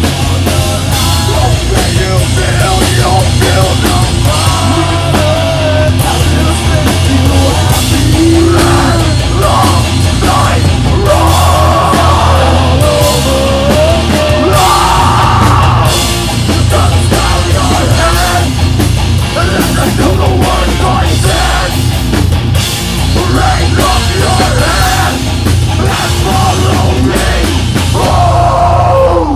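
A live rock band playing loud, heavy rock with drum kit and electric guitars, steady and dense, the band stopping together at the very end.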